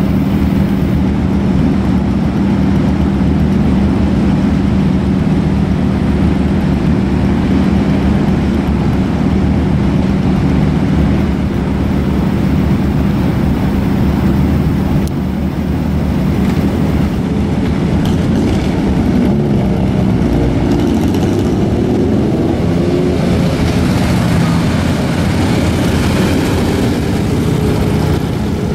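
Motorcycle engines running steadily at idle with a constant low hum; in the second half the engine notes shift up and down as the bikes are revved.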